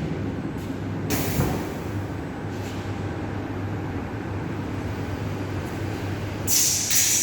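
A CNC cutting machine for carbon prepreg fabric running with a steady hum. Short hissing bursts come about a second in and again near the end.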